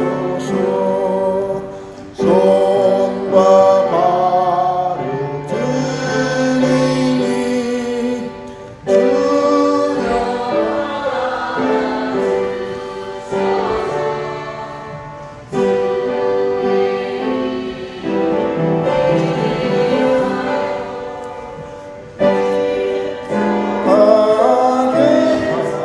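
Church congregation singing a Korean hymn together, line by line in phrases of about six or seven seconds, each phrase swelling and then fading.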